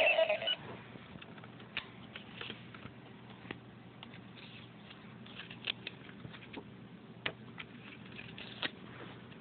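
The tail of an electronic toy sound effect at the very start, then quiet handling of a plastic Megaforce Gosei Morpher toy and cardstock cards: scattered sharp clicks and light rustling as a card is slid into the morpher's slot.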